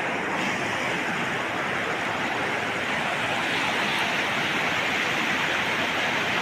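Waterfall: water pouring and rushing steadily over and between rocks, a constant rushing noise.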